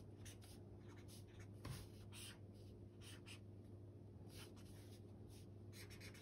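Felt-tip marker drawing on paper: faint, irregular short scratching strokes, over a steady low hum.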